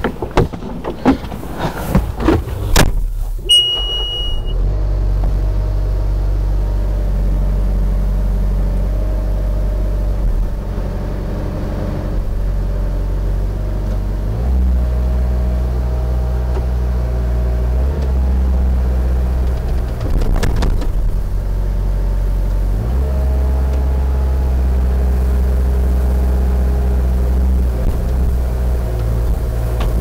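Bobcat skid-steer loader's diesel engine starting and then running steadily, with its note getting heavier twice as the hydraulics raise the lift arms carrying the backhoe attachment. It follows a few knocks as the operator climbs into the cab and a short high beep from the machine's controls.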